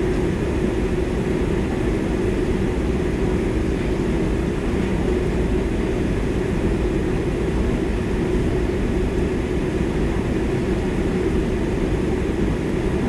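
Steady drone inside an airliner cabin, with the jet engines idling while the aircraft stands before take-off: an even rushing noise with a constant low hum.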